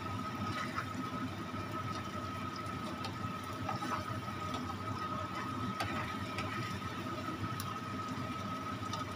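Wet green flat-bean paste frying in a pan, sizzling and bubbling as its water cooks off, while a spatula stirs it with scattered small scrapes and clicks against the pan. A thin steady high tone runs underneath.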